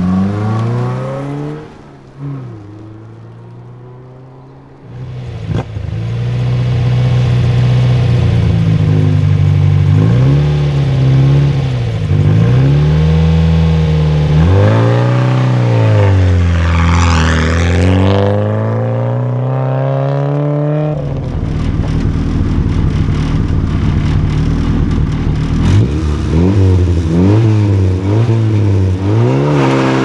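Rally car engines launching from a gravel stage start. One car accelerates away hard right at the start. After a short lull, a second car idles and blips its throttle, then revs up and launches about halfway through. In the last third, another car idles with quick throttle blips.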